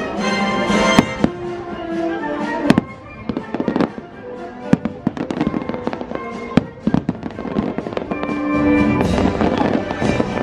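Fireworks display: shells bursting with many sharp bangs and crackles, over the show's music playing on loudspeakers.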